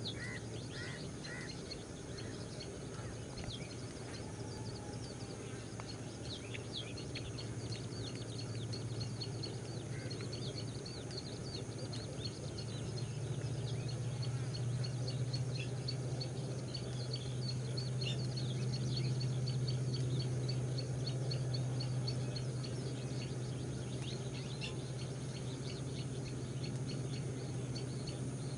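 Many birds chirping in quick, short, high notes, over a steady low hum that grows a little louder in the middle.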